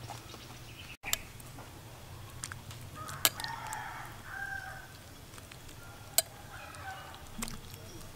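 A metal spoon clicks sharply against the bowl a few times while it stirs the food, with birds calling in the background.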